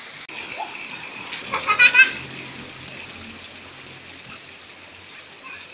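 Steady rain falling, with a cluster of short, high-pitched squeals about a second and a half to two seconds in.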